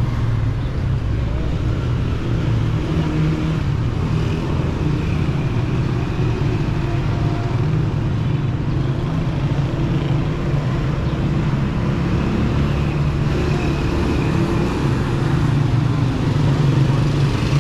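Steady street traffic: car and motorcycle engines running as vehicles pass along the road beside the sidewalk.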